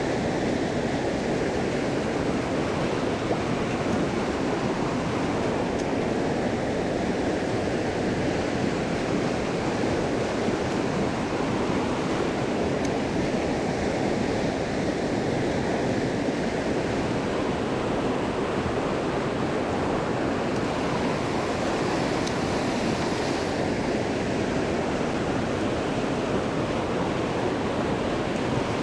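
Small mountain creek rushing steadily, a continuous even roar of running water.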